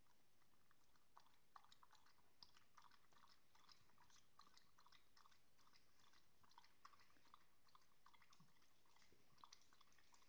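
Greyhound eating from a cup held by hand: faint, irregular chewing with small wet clicks, a few a second.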